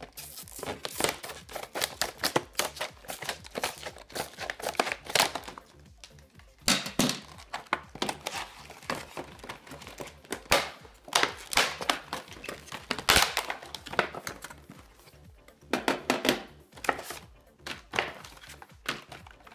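A clear plastic clamshell blister pack being pried and torn open by hand, crinkling and crackling in irregular bursts. A few sharp clicks and knocks come as the parts are handled and set down on a tile floor.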